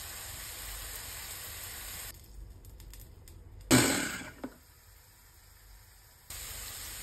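Chopped onion sizzling steadily in hot olive oil in a frying pan. About halfway through comes one short loud pulse of a Hamilton Beach mini food chopper as its lid is pressed, fading within a second, and the sizzle returns near the end.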